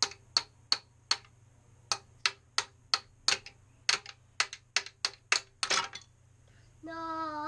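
Plastic mallet tapping the plastic ice blocks of a Don't Break the Ice game, a sharp tap about three times a second. Near the end a short clatter as the blocks give way and drop through the frame, then a child's drawn-out "no" with falling pitch.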